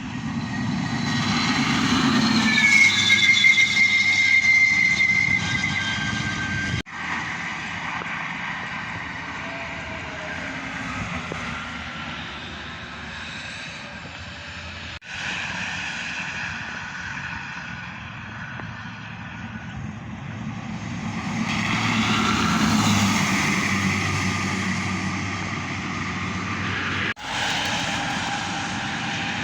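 Buses and other highway traffic passing at speed on a toll road: a steady roar of tyres and engines that swells and fades as vehicles go by. The sound breaks off and restarts three times at cuts.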